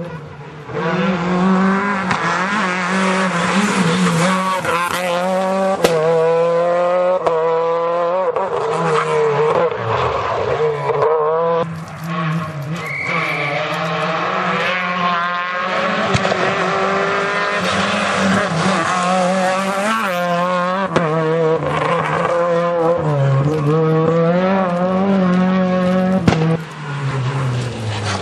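Renault Clio R3 rally car's 2.0-litre four-cylinder engine driven hard: revving up through the gears, its pitch climbing and dropping at each shift, with a few short lifts off the throttle.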